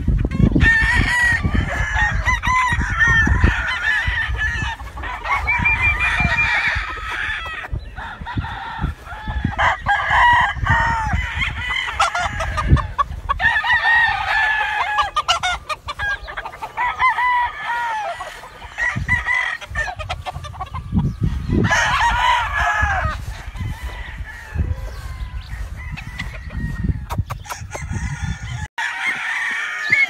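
Many roosters crowing over one another, with clucking between the crows. A low rumble sits underneath and drops away near the end.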